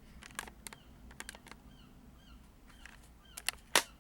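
Several sharp clicks and knocks, the loudest one near the end, with a few faint short chirps in the middle.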